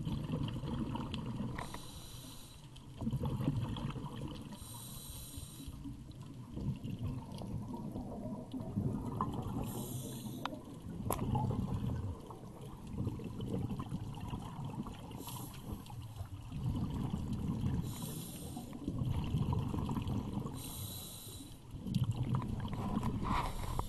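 Scuba divers breathing underwater through their regulators: a short hiss on each inhalation, every few seconds, alternating with rumbling bubble bursts as each breath is exhaled.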